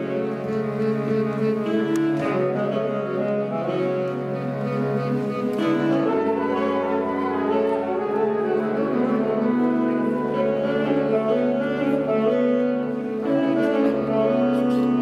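A woodwind ensemble of saxophones and flutes playing a slow piece in long held chords.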